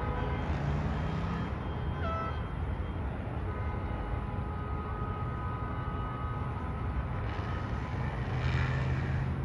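Heavy parade traffic of cars and pickup trucks crossing a river bridge, with a steady low rumble of engines and tyres. Several vehicle horns at different pitches are held for seconds at a time, and a rush of passing-vehicle noise comes up near the end.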